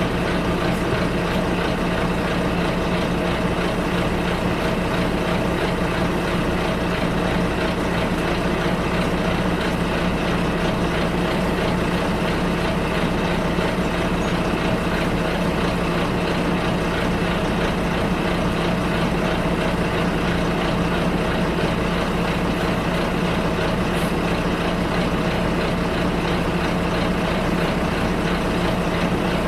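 Bus engine and road noise heard from inside the bus: a steady drone with a constant low hum and no change in pitch or loudness.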